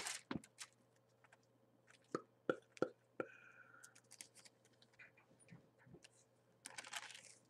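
Faint handling of book pages being turned while a passage is looked up: a paper rustle at the start and another near the end, with scattered soft clicks and taps in between over a low steady hum.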